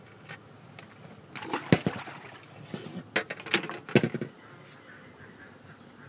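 A quick run of sharp knocks and clatters, loudest about two seconds in and again near four seconds, then a faint background.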